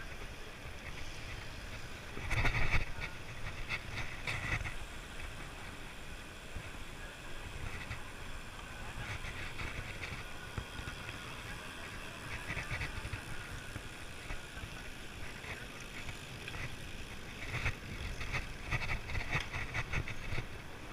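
Wind rumbling on the microphone of a moving bicycle, with several bursts of rapid ticking from the bicycle, the loudest about two to three seconds in.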